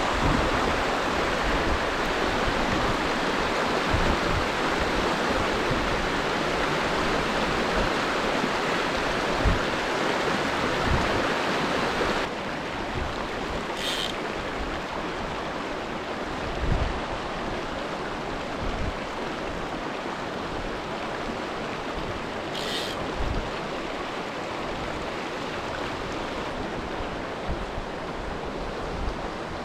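Mountain torrent rushing over rocks, a steady roar of water that eases slightly about twelve seconds in. Two brief high chirps come about nine seconds apart, with scattered low knocks of wind or handling on the microphone.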